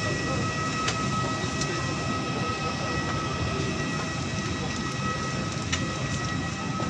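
Steady background noise of an airliner cabin at the boarding door, a low rushing hum with a faint steady high whine. A few light clicks sound over it, the first about a second in.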